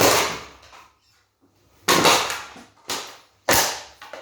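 Four hard blows smashing a Mistral LARV48WT ceiling fan, each a sudden crash with a short ring-out. The first, second and last are loud and the third is weaker.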